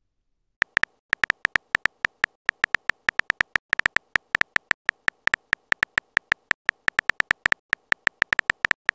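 Phone on-screen keyboard typing sound effect: short, sharp key clicks at about six a second, one per letter as a text message is typed, starting about half a second in.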